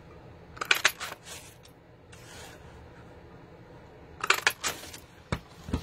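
Clicks and rustles from handling card stock and a plastic paper punch, in two short clusters, followed by a couple of dull thumps near the end.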